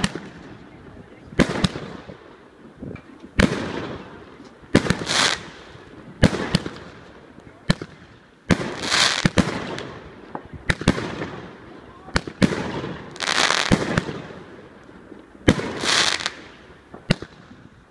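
Fireworks going off: sharp bangs every second or two, many followed by a crackling hiss lasting up to about a second.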